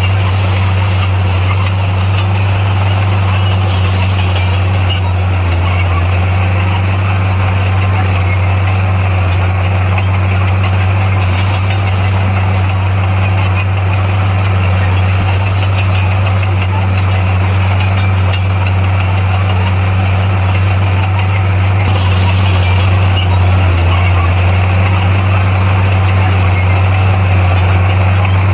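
Heavy earthmoving machine's diesel engine running steadily under work, a loud constant low drone with faint squeaks and clicks over it, getting a little louder near the end.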